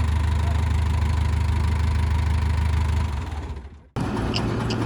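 Heavy diesel machine engine running steadily at idle, fading out about three seconds in. After a brief silence a differently pitched engine sound cuts in abruptly near the end.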